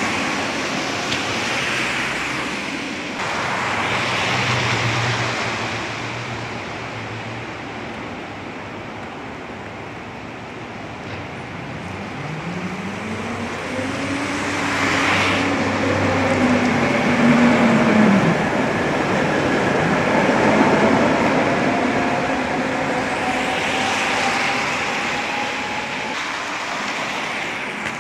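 Tatra T3-type trams running on wet streets in rain, with a steady hiss of rain and wet rails throughout. In the middle, the trams' electric traction motor whine glides up and then down, followed by a long, slowly rising whine as a tram gathers speed.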